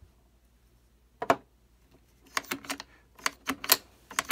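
Sharp clicks and clacks of a Ruger 10/22 rifle being handled during a safety check: one click about a second in, then a quick irregular run of clicks as the hand works at the action by the bolt.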